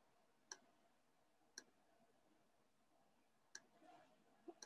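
Four faint, sharp computer clicks over near silence, about half a second, one and a half, three and a half and four and a half seconds in: the pointing device being clicked to select lines in a CAD sketch.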